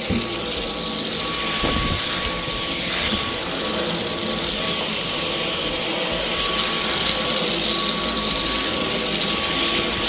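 Dyson V11 Extra cordless stick vacuum running on its highest power mode while cleaning carpet: a steady high motor whine over rushing air.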